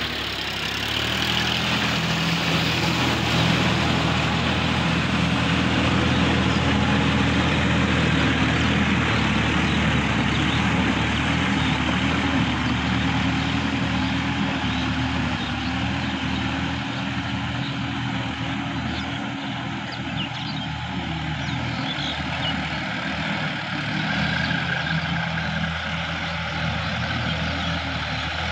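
Sonalika DI-50 RX tractor's diesel engine running steadily under load as it pulls its implement through a flooded paddy field. The note stays even, with small dips in pitch and loudness partway through.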